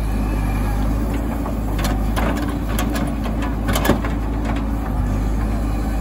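JCB backhoe loader's diesel engine running steadily while it works, with a few short sharp knocks in the middle.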